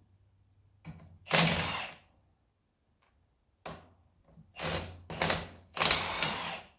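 Cordless impact wrench fired in bursts on a tractor bolt while it is being unscrewed: one short burst about a second in, then three bursts close together near the end, the last the longest.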